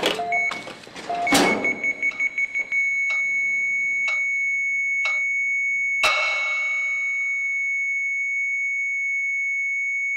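Medical monitor alarm beeping in quick short pulses, then holding one unbroken high tone like a flatline. A clock ticks once a second for a few ticks, ending in a sharper click with a ringing decay about six seconds in.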